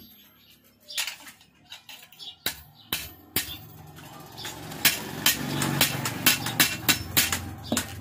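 Hand hammer striking the steel tines of a farm implement laid on an anvil. A few scattered blows come first, then steady strikes about three a second in the second half.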